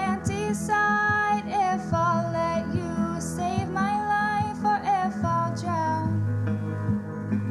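A young woman singing a slow ballad solo, her voice held over a soft, steady instrumental accompaniment.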